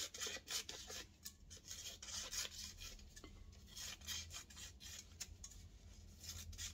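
Scissors cutting a sheet of paper into slips: a run of short, irregular snips with paper rustling between them.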